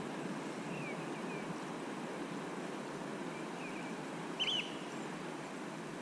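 Steady rush of fast-flowing river water, with a bird chirping briefly a few times above it, the clearest chirp about four and a half seconds in.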